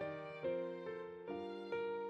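Instrumental background music: a gentle melody, with a new note struck two or three times a second.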